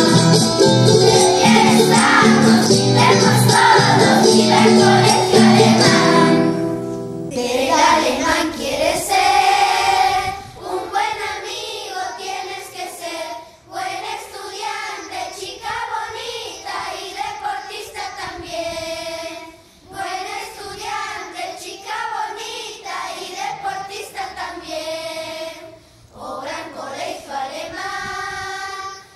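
A cueca played by a full band with the children singing ends about six seconds in. Then a children's choir sings on its own, in phrases of about six seconds with short breaks between them.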